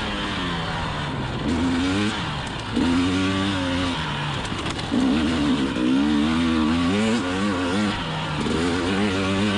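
2020 KTM 300 XC TPI's fuel-injected two-stroke single-cylinder engine revving up and down as the bike is ridden off-road, its pitch rising and falling with each opening of the throttle several times over.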